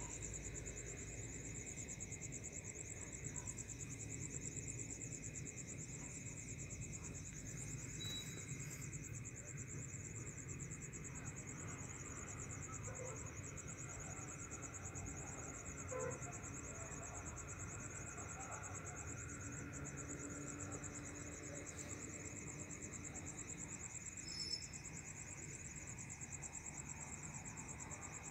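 Crickets chirring in a steady, unbroken high trill.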